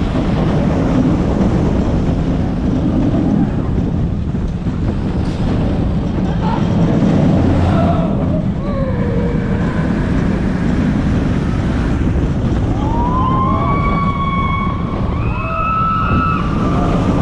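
Wind buffeting the microphone and the rumble of a Mack Rides launched roller coaster train running at speed. A few short high tones slide up and down over it in the second half.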